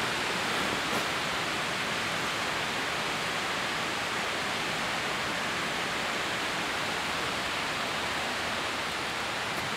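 Steady rushing of fast-flowing river water, an even, unbroken wash of noise.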